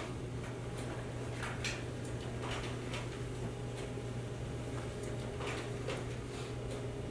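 Sheets of paper rustling in brief, irregular strokes as they are handled and turned, over a steady low room hum.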